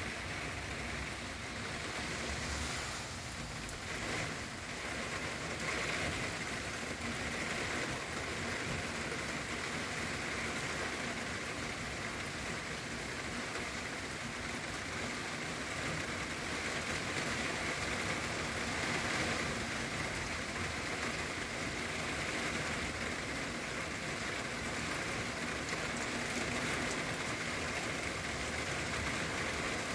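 Steady, fairly heavy rain falling on trees and roofs, an even hiss that holds without a break.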